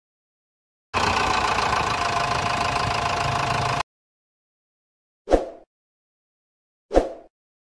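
Engine sound effect, a machine engine running steadily for about three seconds and cutting in and out abruptly, followed by two short sharp hits about a second and a half apart.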